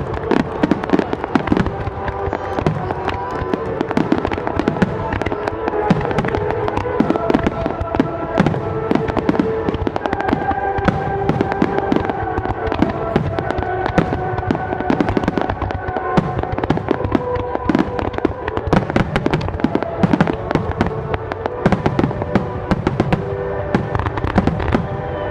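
Aerial fireworks going off in a rapid barrage, a dense stream of bangs and crackles with no break, over music with held notes playing throughout.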